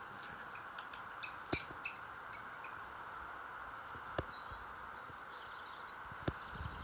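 Outdoor ambience of small birds chirping: a quick run of short high chirps about a second in, then single chirps later, over a steady background hiss. A few sharp clicks stand out.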